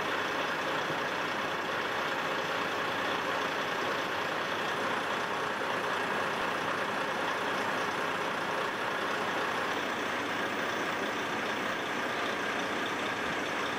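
A heavy vehicle's engine running steadily.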